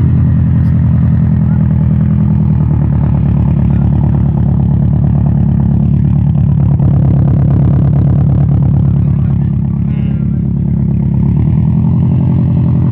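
Boxer engine running steadily at a low, even speed, loud and close, with a slight change in its note a little over two seconds in and again near the end.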